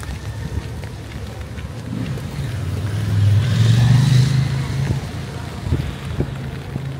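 A motor vehicle passing on a rain-wet street: a low engine rumble that swells about three seconds in, with a brief hiss of tyres on the wet road at its loudest, then eases off.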